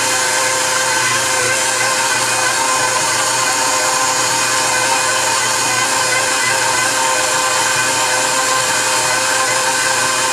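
Stand mixer motor running at a steady speed, a constant hum with a steady whine, its dough hook kneading a sticky bread dough in a stainless steel bowl.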